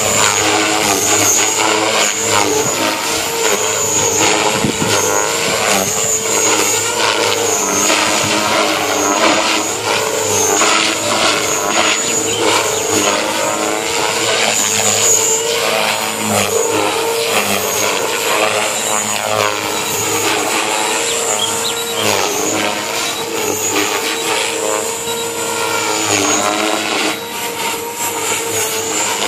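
JR Forza 450 radio-controlled helicopter flying aerobatic manoeuvres: a continuous rotor and motor whine whose pitch keeps sweeping up and down as it manoeuvres.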